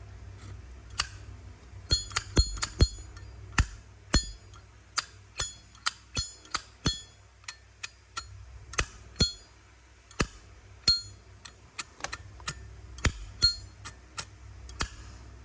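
Irregular metallic clicks and clinks from a Zippo lighter's metal case being handled, many with a short bright ring, some two dozen over the stretch, with a quieter gap in the middle.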